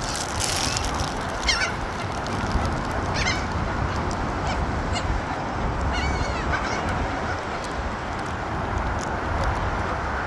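Gulls calling: single short calls about one and a half and three seconds in, then a quick run of repeated calls around six seconds, over steady background noise.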